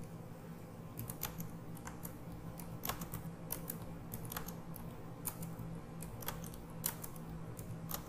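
Computer keyboard keys clicking as text is typed, in irregular short strokes, over a steady low hum.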